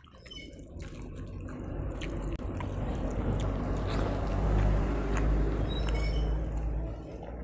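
Water running or pouring steadily, growing louder towards the middle and easing off near the end.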